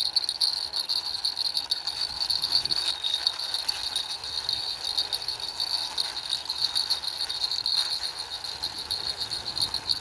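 Small plastic toy lorry pushed along by hand, its wheels rattling and clicking continuously. A steady high-pitched cricket chirr runs underneath.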